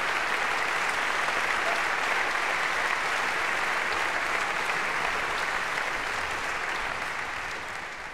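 Large concert-hall audience applauding steadily, a dense even clapping that fades away near the end.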